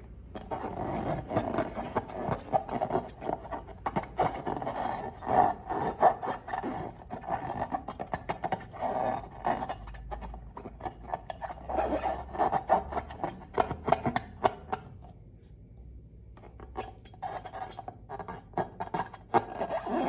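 Slime being worked and mixed, with dense wet clicking and rubbing squish sounds. They pause briefly about three quarters of the way through, then start again.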